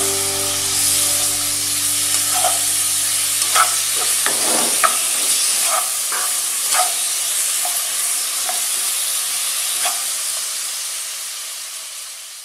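Long beans and chopped garlic sizzling in butter in a nonstick wok while a spatula stirs them, scraping and tapping the pan every second or so. The sizzle dies down over the last couple of seconds.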